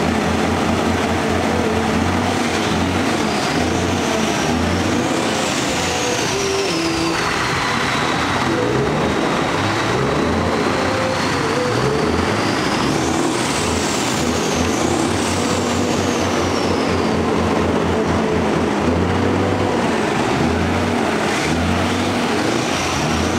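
Scania truck's V8 diesel engine running and being revved, a deep pulsing rumble, with a high whistle that rises and falls twice.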